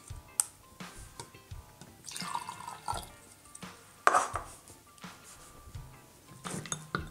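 Black coffee poured from a plastic cup into a glass mug, splashing and dripping in a few bursts, the loudest about four seconds in. Near the end a plastic spoon stirs it in the glass mug.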